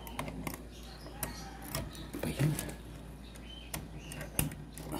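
Irregular light clicks and knocks, with a faint low hum underneath.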